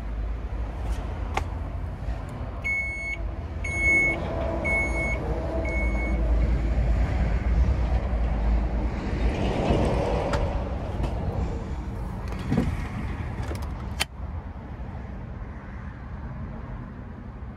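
A Chrysler Pacifica minivan's power-door warning chime: four short electronic beeps about a second apart, the signal that a powered door or liftgate is moving. A low steady rumble runs underneath, and a sharp click comes near the end.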